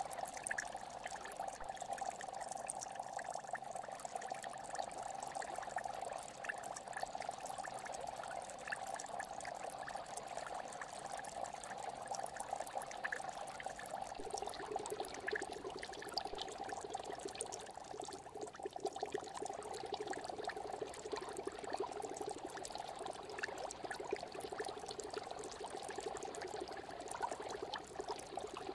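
Steady bubbling and trickling of aquarium water, full of small crackles, with a second, lower tone joining about halfway through.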